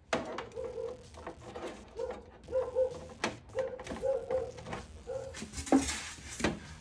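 Cables being handled and plugged into the back of a flat-screen TV: sharp clicks and knocks of plugs and cord, together with a repeated short whining tone.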